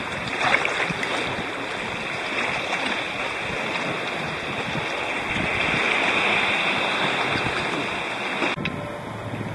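Water splashing and sloshing against a sea kayak's hull and paddle blades as it is paddled across light chop. The sound cuts off suddenly near the end, leaving a quieter wash of water with a low steady hum.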